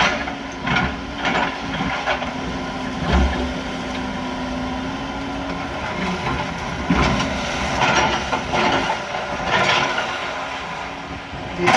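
Excavator diesel engine running steadily, with repeated clanks and scrapes as the bucket digs out and lifts a concrete footer during demolition.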